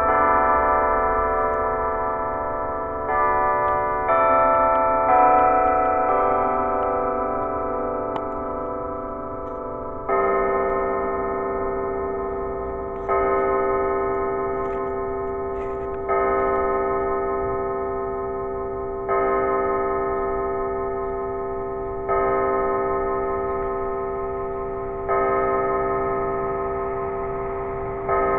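Church bells at noon. In the first few seconds several bells of different pitches sound in a chimed sequence. Then, from about ten seconds in, a single bell tolls the hour, one stroke every three seconds, each left to ring out and fade.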